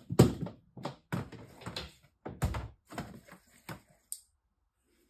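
Plastic lid of a clear storage tub being lifted and handled: an irregular run of knocks, scrapes and clatters of plastic against plastic, stopping about four seconds in.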